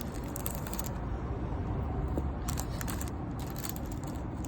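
Cardboard trading cards being handled and slid against one another: a few short, scratchy rustles over a steady low hum.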